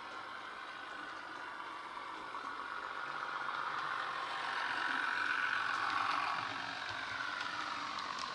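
Diesel multiple unit engine sound from a Class 101 DMU sound file, played by a model train's DCC sound decoder through a small speaker. The sound grows louder toward the middle, then the engine note falls after about six seconds.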